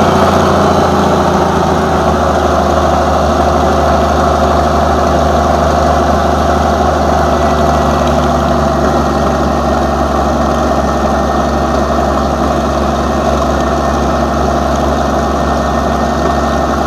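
M47 Patton tank's air-cooled V12 petrol engine (Continental AV-1790) running steadily, just after a cold start, out of short open exhaust stacks. It eases off slightly in loudness as it settles.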